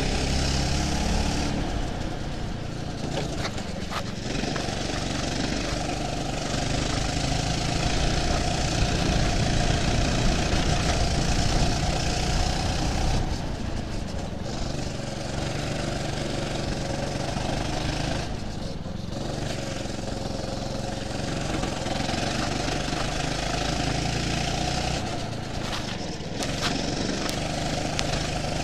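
Go-kart engine heard on board, its note rising as the throttle opens and dropping away several times as the kart slows for corners.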